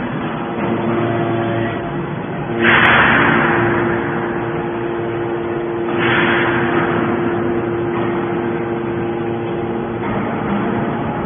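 Aluminum can baler running: a steady machine hum with a held tone, broken twice by a sudden louder hiss that fades away, about three seconds in and again about six seconds in.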